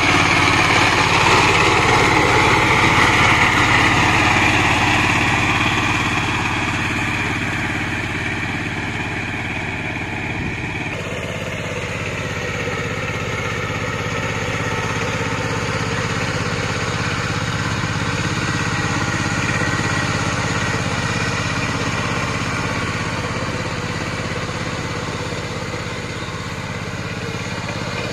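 Two-wheel power tiller's single-cylinder diesel engine running steadily under load while its cage wheels work through wet mud. It is loud at first, close by, then grows fainter as the tiller moves away.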